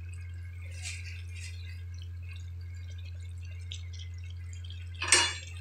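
Pot of chicken and moringa-leaf soup simmering, with faint scattered bubbling pops over a steady low hum. A brief, louder noisy sound comes about five seconds in.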